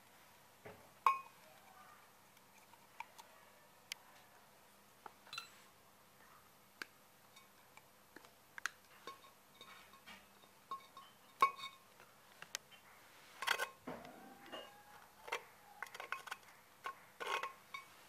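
Irregular small clicks, taps and clinks as a clear plastic strip and a wooden piece are handled against the rim and inside of a terracotta pipe, with a short scraping squeak about three-quarters of the way through.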